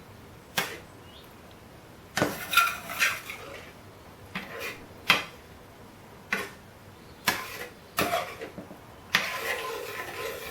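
A utensil stirring a thick curry sauce in a cooking pan: a string of scrapes and knocks against the pan, some brief and some drawn out for about a second.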